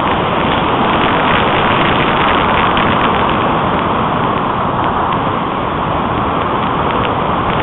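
Steady rushing of airflow over the microphone of a keychain camera riding on a model glider in flight. It is loud and noisy with no clear tone, and a few faint ticks come through.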